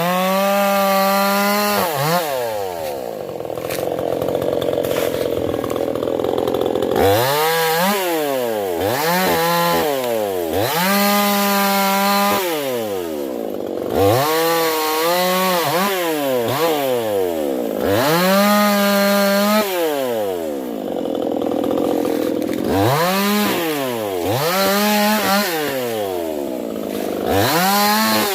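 Stihl two-stroke chainsaw revving again and again: each time the engine climbs to a high, held note and then drops back, with a few seconds of lower, rougher running in between.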